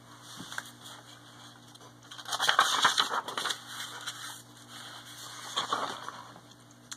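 Paper pages of a picture book rustling as they are separated and turned. There is a louder rustle about two seconds in and a shorter one near six seconds.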